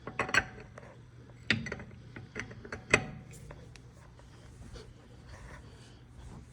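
Lug wrench tightening the wheel's lug nuts by hand: sharp metallic clicks and clanks, loudest right at the start and again about three seconds in, then quieter handling noise.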